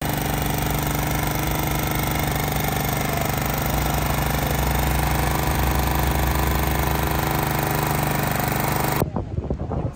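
Engine of a walk-behind greens reel mower running steadily as the mower travels across the turf. The sound cuts off abruptly about nine seconds in, leaving only faint wind noise.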